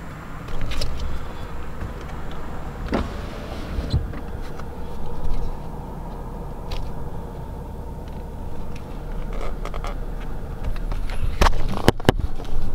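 Handling noise from a handheld camera being moved around a car's cabin: rubbing and scattered clicks and knocks, the sharpest near the end, over a steady low rumble.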